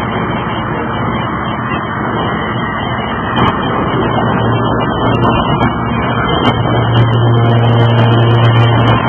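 Hydraulic forging press machinery running with a steady, loud noise. A low hum grows stronger after about four seconds, and a few faint clicks sound over it.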